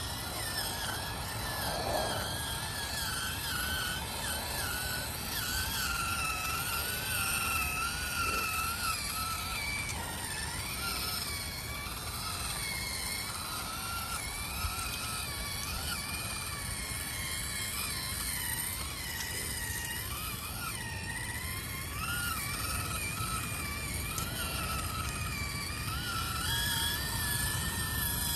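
Electric motor and gear whine of an FMS FCX18 Chevy K10 1/18 RC crawler being driven, its pitch rising and falling over and over with the throttle.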